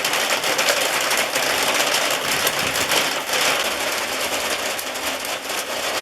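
Heavy rain pouring down, a loud, dense patter of drops striking hard surfaces close by.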